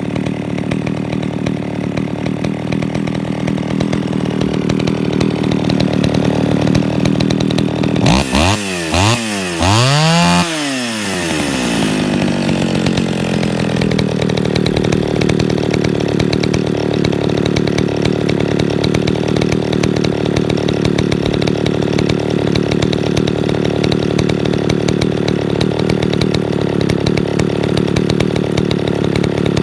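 Echo 500VL two-stroke chainsaw idling steadily. About eight seconds in it is revved up three times in quick succession, then drops back to idle.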